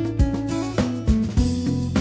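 Background music: guitar and drums with a steady beat.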